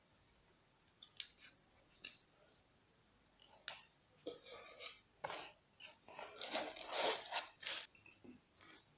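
Faint handling of the dashcam's box and packaging: scattered light clicks and taps, then a couple of seconds of crinkling and rustling near the end as the camera is unwrapped.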